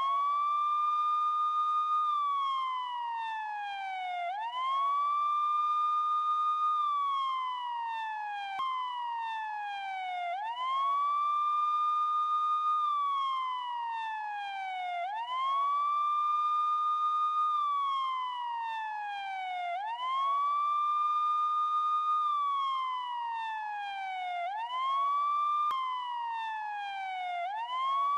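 Police siren wailing: each cycle climbs quickly, holds a high note, then slides slowly down, repeating every four to five seconds.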